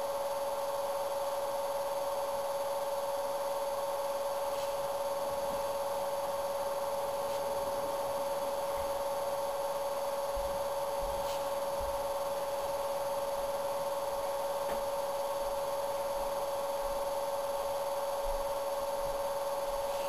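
A steady electrical hum made of several held tones, the strongest a mid-pitched one, unchanging throughout, with a few faint ticks.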